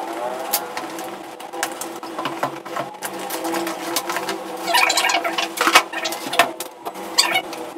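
Unpacking noises: a cardboard box and its inner packing being handled, with scattered clicks and knocks, and a spell of crinkling plastic wrap about five seconds in as a conference microphone unit is pulled out and unwrapped. A steady low hum runs underneath.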